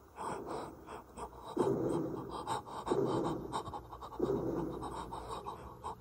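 A man panting heavily close to the microphone, a loud breath about every second and a quarter, with small clicks between the breaths.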